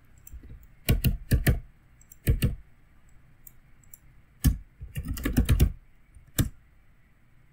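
Computer keyboard typing in short bursts of keystrokes with pauses between, including a quicker run of keys about five seconds in.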